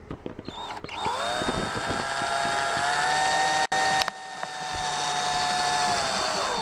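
Power drill driving a screw: the motor whine rises about a second in, holds at a steady pitch, and winds down near the end.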